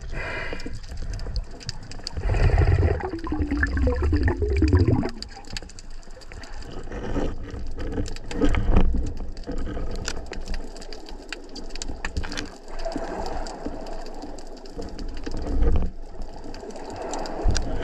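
Water sloshing and bubbling around an underwater camera, with many sharp clicks and knocks throughout. A pitched sound falls in pitch a couple of seconds in.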